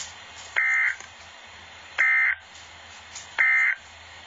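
NOAA Weather Radio SAME data tones: three short, identical buzzy bursts about a second and a half apart, the end-of-message code that closes the required weekly test. A faint low hum runs beneath them.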